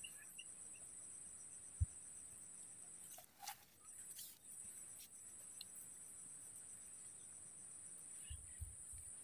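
Faint, steady high-pitched chirring of insects such as crickets, which breaks off for about a second near the middle and then resumes. A single soft knock comes about two seconds in, and a few low thumps come near the end.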